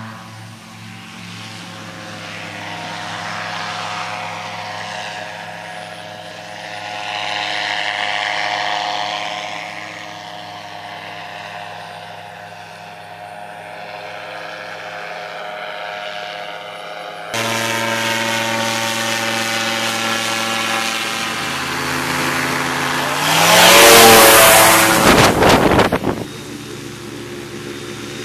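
Powered parachute's engine and pusher propeller droning as it flies over, growing louder and softer as it comes and goes. Later it passes close, its pitch falling, with a loud rushing noise for about two seconds that cuts off suddenly.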